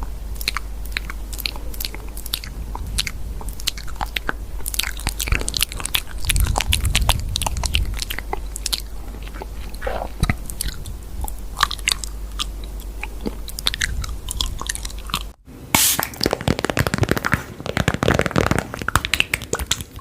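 Close-miked crunching and chewing: a dense run of crisp clicks and crunches. A low hum under them stops suddenly about 15 seconds in, and the crunching grows denser after that.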